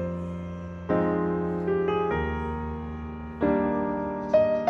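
Background piano music: slow, soft chords struck about once a second, each left to ring and fade.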